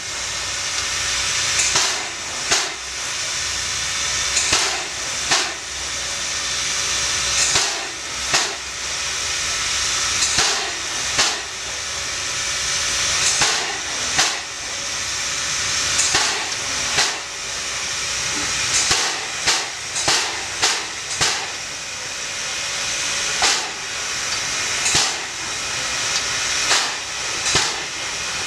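LV-class 2-10-2 steam locomotive working slowly: continuous steam hiss with a sharp exhaust chuff about every second and a half, and a quicker run of beats about two-thirds of the way in.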